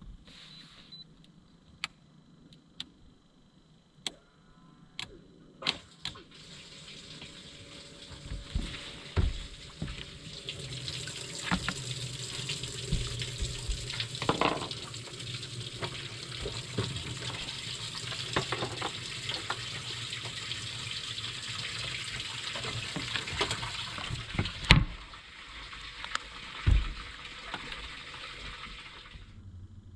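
Water running or spraying steadily, starting about six seconds in and cutting off abruptly near the end, with scattered knocks and clicks before and during it.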